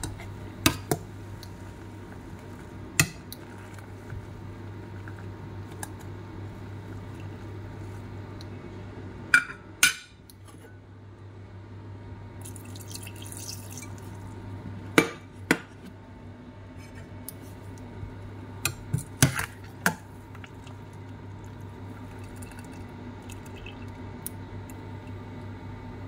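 Pot of pelmeni boiling with a steady bubbling hiss, while a metal skimmer knocks against the stainless steel pot in sharp clinks now and then, several coming in quick pairs.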